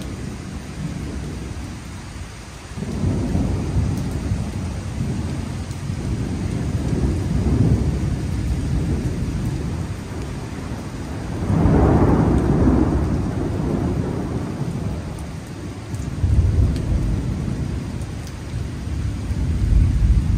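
Summer thunderstorm: a loud, uneven low rumble that swells and fades several times, the strongest surge about halfway through, over a faint hiss of rain.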